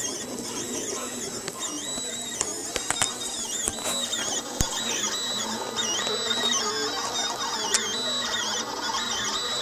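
Filament 3D printer running: the stepper motors whine in short tones that keep jumping up and down in pitch as the print head changes speed and direction, with a few sharp clicks.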